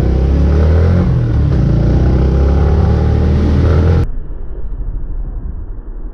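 Motorcycle engine running while riding, its pitch rising and falling with the throttle, over a haze of wind and road noise. About four seconds in, the sound cuts abruptly to a quieter, muffled stretch.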